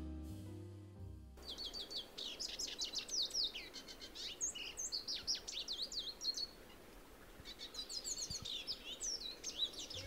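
Lesser goldfinch song: a rapid, jumbled twittering of high chirps and slurred notes in two bouts, with a short pause about seven seconds in. Background music fades out during the first second or so.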